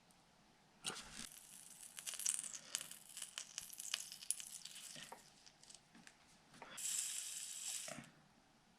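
Flux and solder sizzling and crackling as a soldering iron heats a wire into an XT-90 connector cup. It is punctuated by small ticks, with a steadier hiss for about a second near the end.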